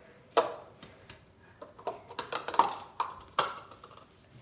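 Small plastic bowls knocking and clattering as they are taken down from a cabinet and set on a stone countertop: a string of sharp knocks, some with a short ring.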